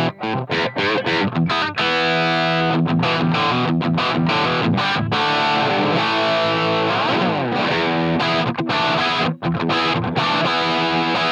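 Electric guitar played through the Line 6 Pod Go's Marshall Plexi amp model, an old-school, basic crunchy rock tone. Short choppy chords give way to ringing chords, with a sliding chord partway through.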